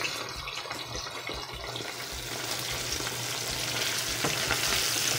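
Flour-battered brook trout fillets frying in a pan of hot oil: a steady sizzle that grows louder from about two seconds in.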